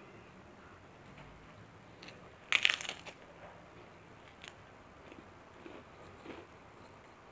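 A bite into a crisp kerupuk cracker: one loud crunch about two and a half seconds in, followed by faint chewing clicks.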